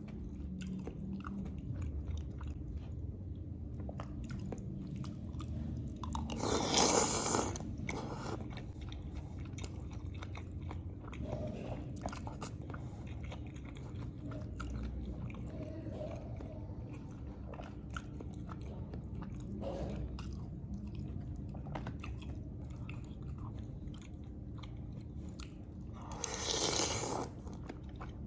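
Close-miked ASMR eating: a person biting and chewing lontong with green chilies, with small wet mouth sounds throughout. Two louder, longer noisy bursts about seven seconds in and again near the end.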